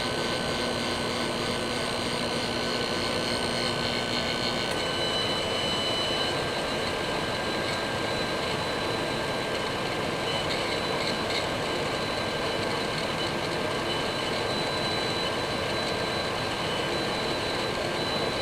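Microwave oven running at power level 5: a steady hum of its fan and turntable motor, with a low transformer hum that stops about four and a half seconds in as the magnetron cycles off under the 50% duty cycle.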